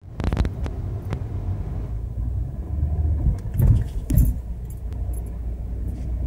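Low steady rumble of a car driving slowly, heard from inside the cabin, with scattered light clicks and rattles, several in quick succession at the start.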